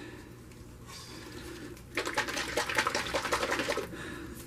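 Acrylic paint being poured into a pour cup: a dense, crackling, spluttering gush that starts about two seconds in and lasts about two seconds.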